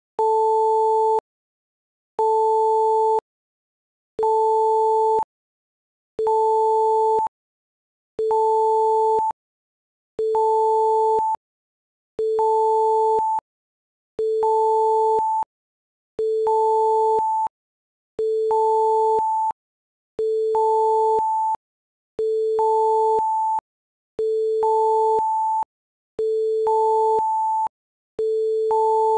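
Electronic beeping: a steady low tone sounded together with a tone an octave above, in pulses about a second long, repeating evenly about every two seconds. Later pulses show a small step in their loudness, as if two copies of the pulse are drifting slightly out of step.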